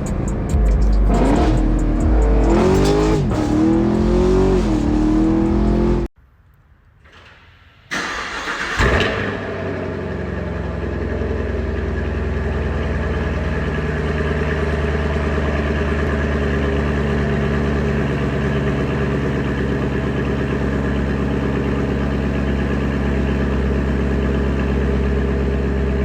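Car engine revving, its pitch rising and falling, for the first few seconds; after an abrupt cut to quiet, an engine runs with a steady, even drone.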